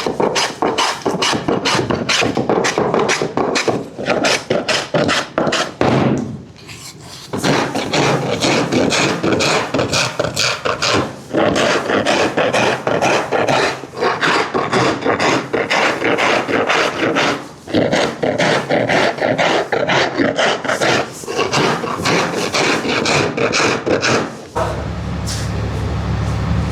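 A wooden cricket bat being worked over by hand with quick, rasping back-and-forth strokes, several a second, with a few short pauses. About two seconds before the end, a steady low machine hum starts.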